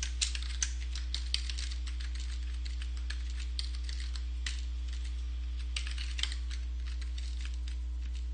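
Typing on a computer keyboard: short runs of keystroke clicks broken by pauses. A steady low hum lies underneath.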